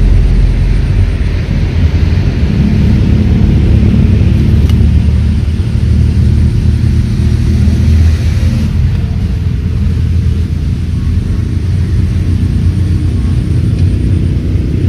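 A loud, steady low rumble.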